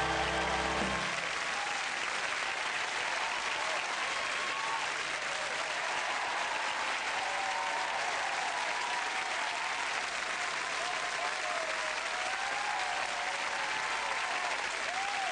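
Studio audience applauding loudly as the song ends, the band's last note cutting off about a second in.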